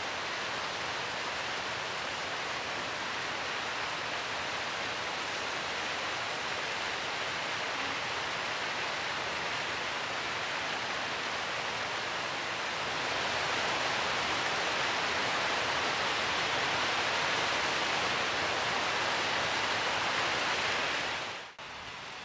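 Steady rushing of river water, a little louder from about 13 seconds in, then cut off abruptly just before the end and replaced by a quieter wash of water.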